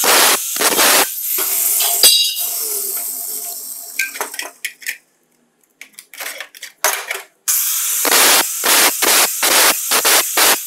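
Angle grinder with a thin cutting disc cutting into the edge of a hole in a steel plate in short repeated strokes. In the middle the grinding fades and stops, and a few short metallic clicks follow before the grinding strokes start again.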